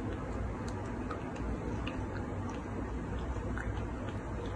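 Faint, irregular little clicks and smacks of a baby macaque biting and chewing watermelon, over a steady low hum.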